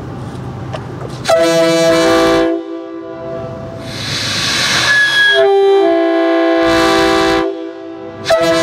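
Nathan RS3K three-chime railroad air horn blown in separate blasts, sounding a steady three-note chord. There is a short blast about a second in, a rush of air around four seconds, a longer blast of about two seconds after that, and a brief toot near the end.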